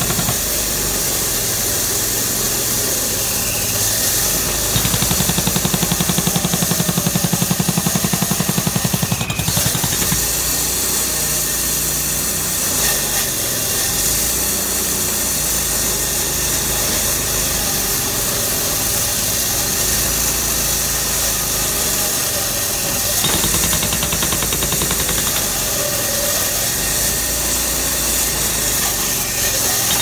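Cat H75E hydraulic breaker hammer on a Cat 432E backhoe loader pounding concrete in a rapid, steady rattle of blows, with the backhoe's diesel engine running underneath. The hammering gets louder for a few seconds about five seconds in.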